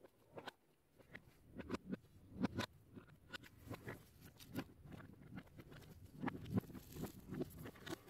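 Faint, irregular clicks and small knocks of a ratchet and 10 mm socket working loose the drain motor's mounting bolts.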